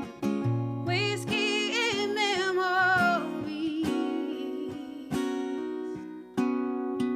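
Acoustic guitar strummed in a steady rhythm, accompanying a woman singing. About a second in she sings one long phrase with vibrato, which slides down and fades by about three seconds, leaving the guitar alone.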